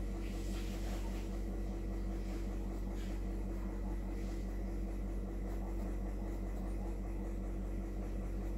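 Steady low hum throughout, with a few faint, short scratches of a graphite pencil drawing lines on sketchbook paper in the first half.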